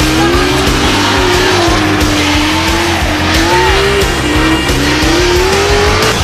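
Two drift cars sliding in tandem, engines held at high revs and tyres squealing in a wavering screech that rises and falls, with rock music underneath.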